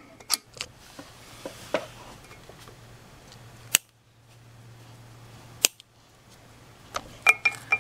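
Wire cutters snipping at the pulse coil's wiring and wire ties, heard as a few sharp clicks. The loudest come about four and six seconds in, with a quick cluster near the end.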